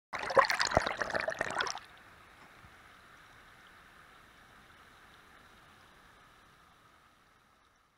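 Loud bubbling and knocking of a shallow stream, heard with the camera under the water, for about two seconds. It gives way to the faint, steady rush of a mountain stream over rocks, which fades toward the end.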